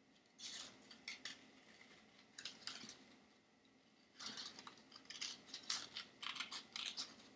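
Scissors snipping through a folded double layer of paper in short, irregular cuts. The cuts are faint and come more often in the second half.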